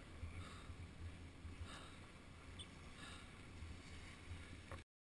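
Faint, muffled low rumble of a snowboard gliding slowly over snow, heard through a helmet-mounted GoPro in its waterproof housing. The sound cuts off to silence near the end.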